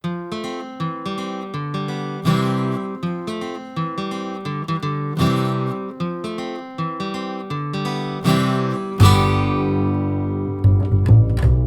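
Background music: acoustic guitar picking a run of single notes, joined by fuller strummed chords with a deeper bass about nine seconds in.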